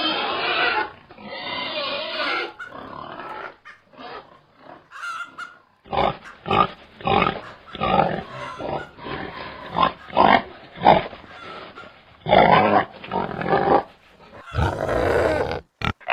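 Pigs grunting in an irregular series of short grunts, with a couple of longer, louder calls near the end.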